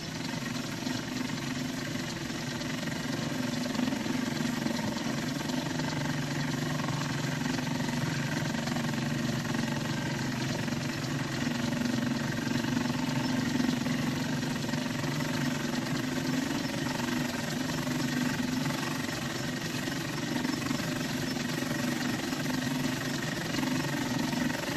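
Belt-driven metal lathe running steadily in middle gear with a steady hum while a 45-degree tool takes a cut in metal.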